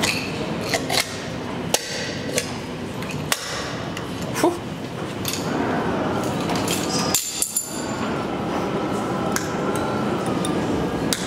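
Hand tools working on a metal elevator call-button faceplate: a scattered run of sharp metallic clicks and taps as the plate is unscrewed, pulled from the wall and its wires are cut, over a steady background murmur.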